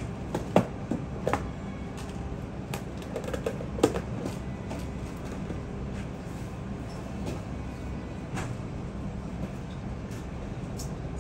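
Steady low background hum with a few sharp knocks and clatters in the first four seconds as a plastic food container is handled and set down on the counter, then lighter clicks.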